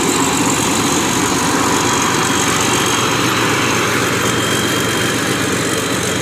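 Used combine harvester's diesel engine running steadily and loud.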